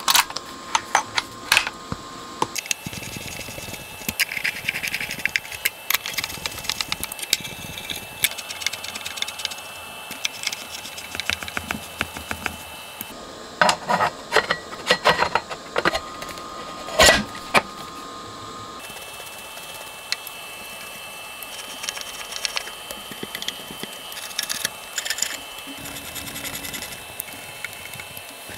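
Scattered clicks, taps and metal knocks of an aluminium headphone amplifier case being reassembled by hand, with a cluster of louder knocks in the middle as the top cover goes on and small screws being put back in near the end.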